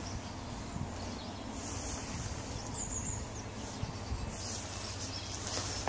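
Steady low outdoor background noise with a few faint soft knocks, and a bird's short high chirp about two seconds in.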